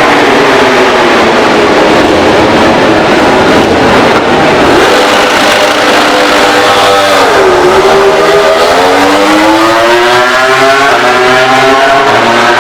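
MotoGP racing motorcycle engine held at high revs on launch control, the pitch dropping sharply as the clutch is released about seven seconds in, then rising steadily as the bike accelerates away.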